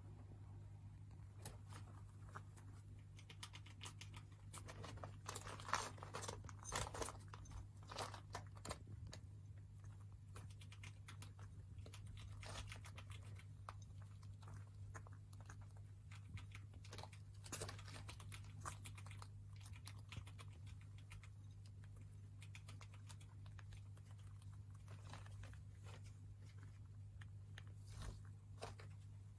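Faint, irregular crunching and crinkling of a small pet rat, over a steady low hum.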